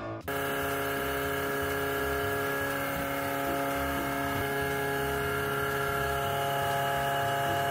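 A short tail of music cuts off. Then a steady machine hum at one unchanging pitch takes over and runs on evenly.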